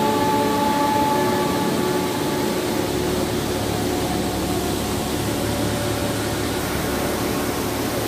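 Steady rush of a large waterfall, a continuous loud noise of falling water. A few faint steady tones hum over it in the first two seconds and fade away.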